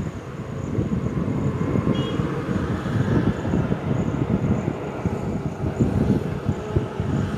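Road traffic on a highway: a vehicle's rumble swelling as it passes and fading toward the end, over a rough low rumble.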